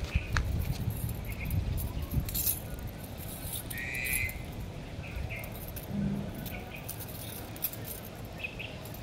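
Scrapes and light rattles of a wire wand toy dragged and batted on concrete by a cat, loudest in the first couple of seconds, with short bird chirps repeating in the background.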